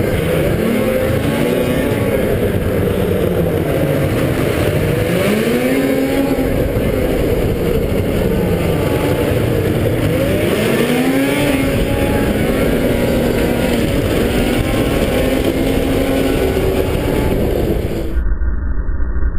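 Snowmobile engine revving up and down again and again as the throttle is worked through the corners, heard from on board the racing sled over a steady rush of noise. Near the end the sound turns abruptly duller.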